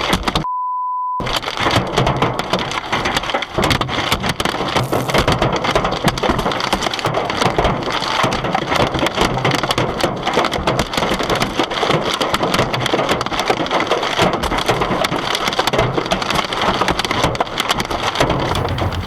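Heavy hail pelting a car: a dense, unbroken clatter of hailstone impacts. About half a second in, a short steady beep tone briefly replaces it.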